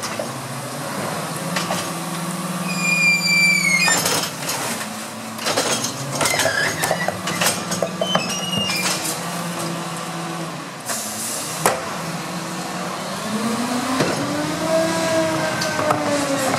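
Rear-loader garbage truck's engine and hydraulics running while the rear lifter tips a wheeled bin: a falling squeal about three seconds in, then a clatter of knocks and bangs as the bin is emptied into the hopper. A short hiss of air comes near eleven seconds in, and towards the end the truck's engine revs up and settles as it pulls forward.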